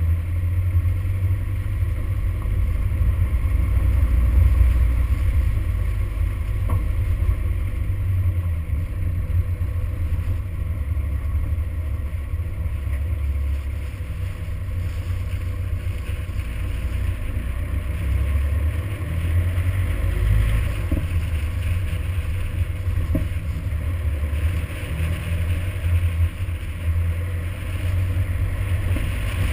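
Toyota Hilux driving along a rough gravel track: a steady low rumble of engine and tyres, with a few faint knocks.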